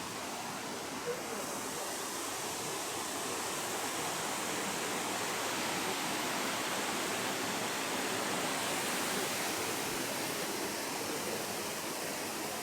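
Nachi Falls, a tall single-drop waterfall, pouring: a steady rush of falling water.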